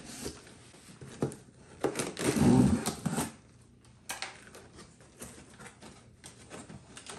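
Packing tape being peeled off a cardboard box, with one long loud rip about two seconds in, and scattered scratches and taps of fingers on the cardboard around it.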